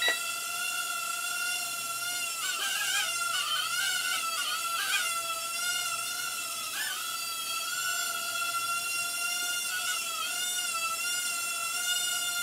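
FEILUN FX133 mini quadcopter hovering, its motors and propellers giving a steady high whine. The pitch wavers between about two and five seconds in and again around ten seconds in as the throttle and stick inputs change.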